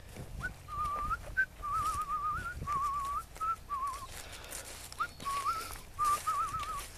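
A man whistling a little tune through his lips: a string of short, wavering, trilled phrases with brief gaps between them.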